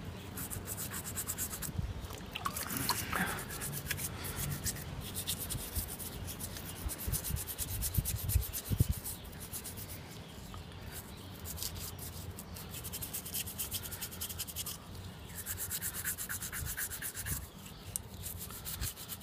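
Toothbrush bristles scrubbing a small aluminum relic cap in quick back-and-forth strokes, brushing off dirt loosened by an oxalic acid soak. A few dull knocks come about eight seconds in.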